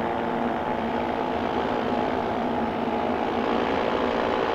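Paramotor's two-stroke engine and propeller running steadily in flight, with its carburettor tuned to run as the owner wants.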